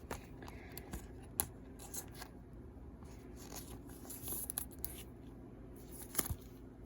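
Trading cards being handled: faint, scattered clicks and rustles, with a sharper tap a little after six seconds.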